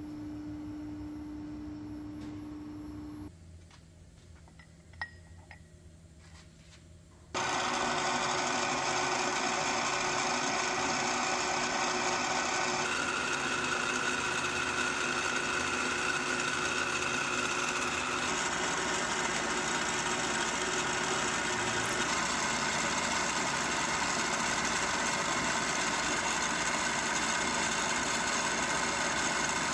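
Drilling machine spindle running and a small drill bit cutting into the end of a steel rod flooded with coolant, a loud steady hiss and whine from about seven seconds in. Before it comes a steady machine hum, then a quieter pause with a single click.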